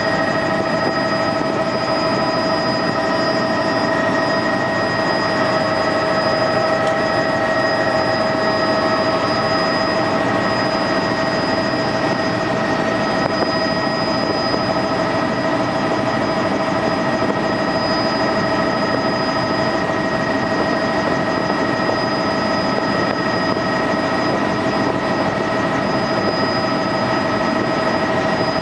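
Tour helicopter's engine and rotor running steadily, a constant drone with several steady whining tones over it.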